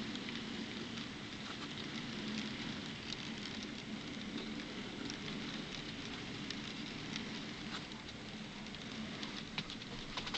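N scale model passenger train rolling along the track: a steady low hum with a light patter of tiny metal clicks from the wheels on the rails, the clicks coming quicker near the end.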